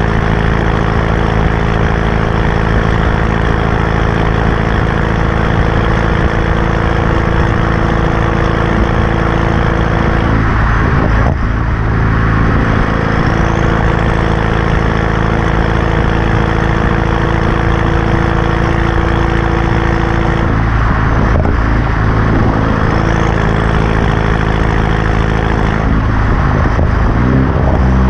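BMW F30 328i's turbocharged four-cylinder engine running at idle through a catback exhaust with the muffler and resonator deleted and an aftermarket downpipe. The engine note holds steady, with the engine speed shifting briefly three times, about ten seconds apart.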